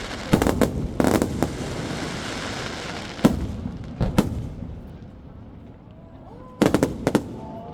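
Aerial fireworks bursting: quick flurries of bangs with a crackling hiss trailing between them, then two single sharp reports and another fast cluster of bangs near the end.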